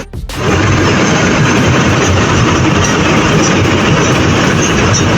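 Steady running noise of an amphibious Duck truck under way, its engine and drivetrain droning, after a brief dropout right at the start.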